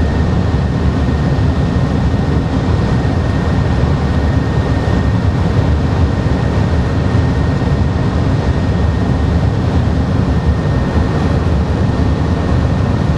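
Steady rumble and rush inside the driving cab of a TGV Atlantique high-speed train running at speed, with a faint steady high tone over it.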